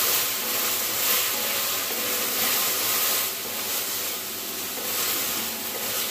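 Chilli chicken stir-fry sizzling steadily in a metal kadai as a spatula stirs and tosses the sauce-coated fried chicken pieces, onion and capsicum.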